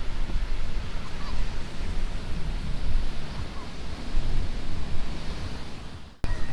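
Surf washing onto a beach: a steady rush of breaking waves with a heavy low rumble. It cuts off suddenly near the end.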